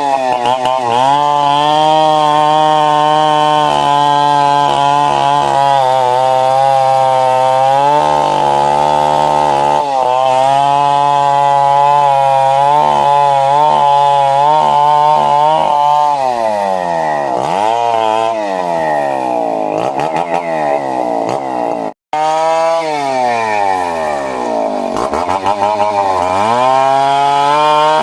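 Two-stroke chainsaw running at high revs, steady as it cuts wood. About halfway in, the revs fall and rise again and again as the throttle is let off and opened up, with a brief break about two-thirds in.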